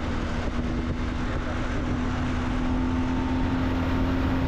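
BMW R1250GS boxer-twin engine running under way at about 4500 rpm, a steady tone rising very slightly in pitch, over wind noise. This is the engine speed at which the rider says a fixed noise from the right cylinder begins, a noise that the BMW dealer called normal.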